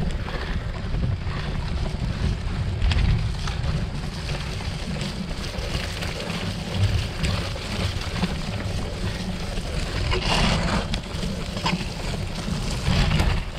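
Wind buffeting the microphone of a camera riding on a cyclocross racer at speed, with scattered rattles and knocks from the bike over rough ground.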